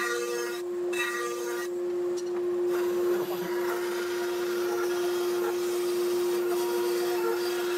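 Grizzly G0513X 17-inch bandsaw cutting scrap pine boards, over a steady hum from the running machine. The cutting noise comes and goes in short spells for the first few seconds, then runs on without a break.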